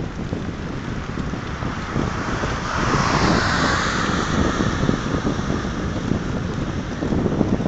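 Wind buffeting a phone microphone on a moving bicycle, a dense low rumble. About three seconds in, a car passes on the adjacent road, its tyre hiss swelling and then falling away.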